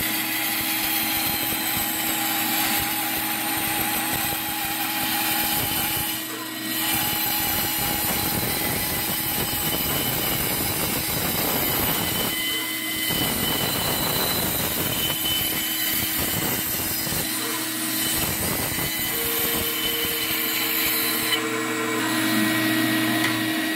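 Bandsaw running and cutting around the edge of a wooden bowl blank as the blank turns on a circle-cutting jig's pivot pin: a steady motor hum with the blade's cutting noise, dipping briefly about six seconds in.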